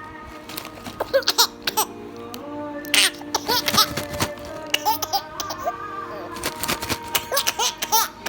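A baby laughing in repeated short bursts of giggles and squeals, starting about a second in, over steady background music.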